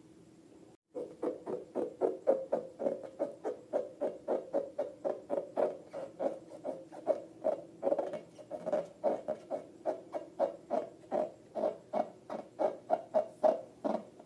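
Slime being squeezed and worked by hand, a rhythmic squelch about three times a second, starting about a second in.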